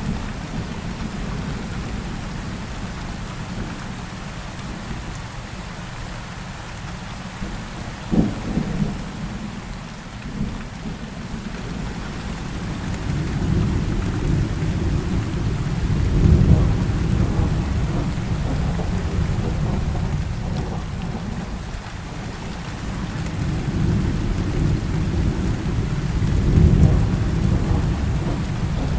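Heavy rain falling steadily, with rolling thunder rumbling deep and low. The thunder swells twice, once in the middle and again near the end. A short sharp crack comes about eight seconds in.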